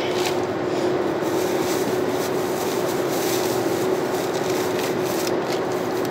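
Steady cabin noise of a VW Up cruising at highway speed: tyre roar on the asphalt and engine drone, with one even hum running through it.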